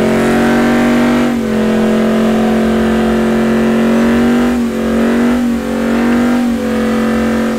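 Pickup truck engine held at high revs during a burnout, rear tyres spinning in thick smoke; the pitch stays steady with a few brief dips where the throttle eases and comes back.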